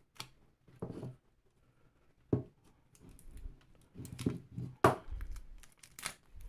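Hands working a cardboard product box: scattered taps, scrapes and clicks as the sealing sticker is peeled off and the box is handled, with a few sharper knocks about two and a half, five and six seconds in.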